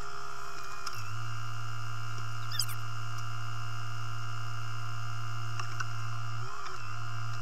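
Loader engine running steadily with a low hum and a higher whine that bends in pitch about a second in and again near the end.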